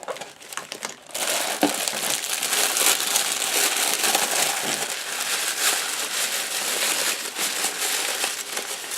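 Wrapping crinkling and rustling steadily as a surprise package is opened and dug into by hand, starting about a second in.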